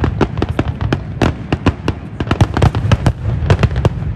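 Fireworks display going off: a rapid, irregular string of sharp bangs and crackling pops, several a second, over a steady low rumble.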